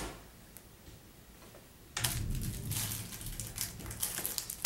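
Loose Lego pieces being handled in the hands: a quick, dense run of small plastic clicks and crinkles that starts about two seconds in.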